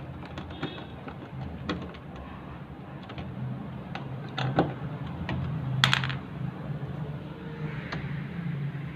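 Scattered clicks and knocks of hands handling and working loose washing-machine parts, with a louder clatter about six seconds in, over a steady low hum.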